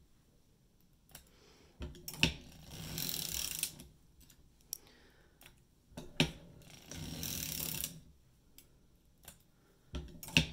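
Hand-cranked circular sock machine knitting. A sharp clack is followed by about a second of clattering as the needles run through the cams, repeating about every four seconds.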